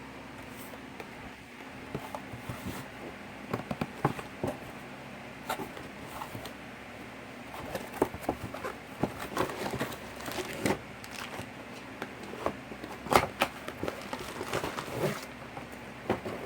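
Small plastic toy pieces and packaging being handled on a tabletop: scattered, irregular clicks and taps with light rustling, the sharpest knock about 13 seconds in.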